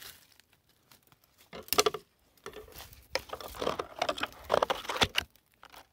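Dry leaves and twigs crunching and branches scraping as someone pushes on foot through dry brush. It comes in a few short bursts about two seconds in, then a longer run of crackling and snapping until about five seconds in.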